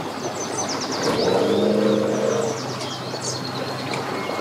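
An engine's hum swells for a couple of seconds and then eases off. Birds chirp over it, with a quick run of high chirps about half a second in.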